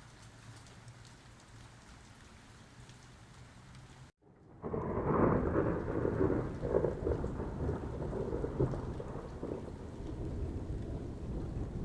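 Light rain falling steadily. About four seconds in, the sound drops out for a moment, then a long rolling peal of thunder comes in loud over the rain and rumbles on, easing slightly toward the end.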